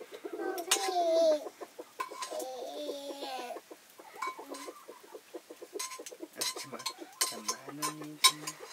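Chickens clucking in short, pitch-bending calls, among scattered sharp clicks and knocks.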